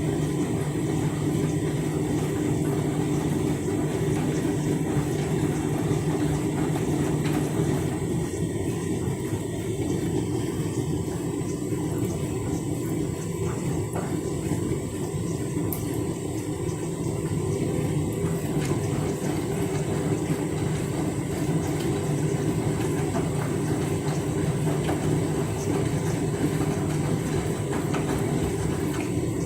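Candy washing machine running: a steady rumble from the drum and motor.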